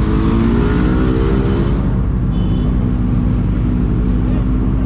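Motor vehicle engine running, its pitch rising as it revs for about two seconds, then holding steady.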